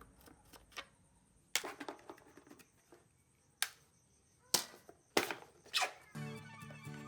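A handful of sharp, irregularly spaced knocks and clicks from parts and tools being handled during the fan restoration. Background music comes back about six seconds in.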